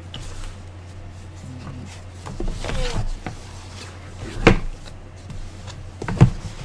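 A heavy cardboard product box being handled and turned over on a desk: scraping and rustling about two and a half seconds in, then two sharp knocks as it is set down, at about four and a half and six seconds.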